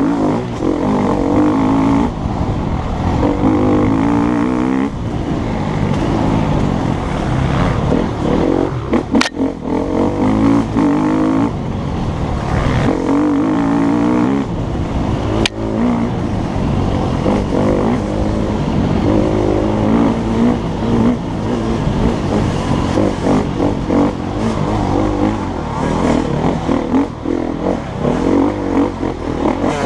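KTM EXC-F 250's single-cylinder four-stroke engine revving hard and dropping again and again as the bike is ridden fast over dirt trails, heard from a helmet-mounted camera. Two sharp knocks stand out, about nine and fifteen seconds in.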